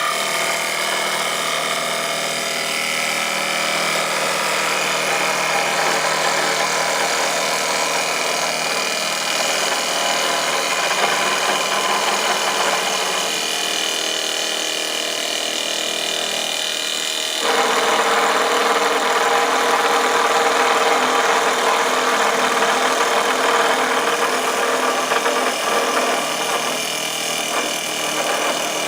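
CNC wood lathe running, its motors giving a steady hum with a hiss. About seventeen seconds in, the sound suddenly becomes louder and rougher, like a cutter working the turning wood.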